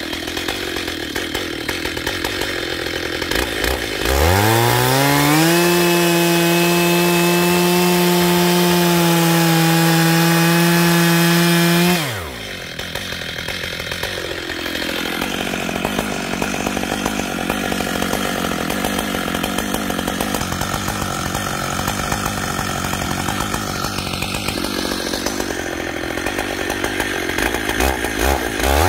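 Stihl MS880 two-stroke chainsaw at work in timber. About four seconds in it revs up to a steady, high full-throttle note. About twelve seconds in the pitch drops sharply and turns rough as the chain bites and cuts under load, and the revs climb again at the very end.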